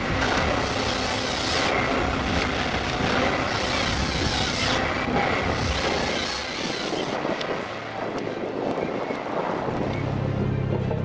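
Heavy forestry machine running, its engine noise joined by three bursts of hissing. Steady low music tones come in near the end.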